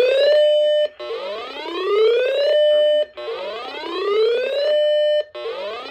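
Electronic whooping alarm from a weather alert radio. A tone rises in pitch, holds briefly, then cuts off, repeating about every two seconds: three whoops.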